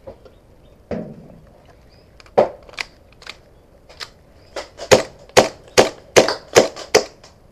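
Airsoft pistol firing a string of sharp shots, about ten in all. A few come singly at first, then a quicker run of roughly two to three a second follows about four seconds in.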